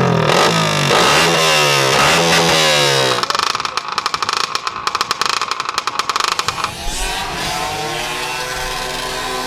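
50cc two-stroke geared mopeds revving: several quick rises and falls in pitch over the first three seconds, then a few seconds of fast, rattling high-rev running. Near the end an engine climbs in pitch and settles into a steady run.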